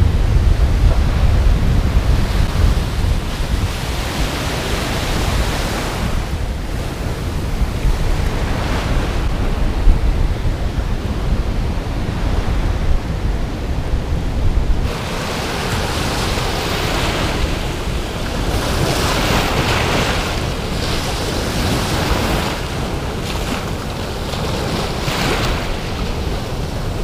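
Ocean surf washing in over a shallow sandy beach, with wind buffeting the microphone. About fifteen seconds in, the low wind rumble drops away abruptly and the hiss of breaking foam comes forward.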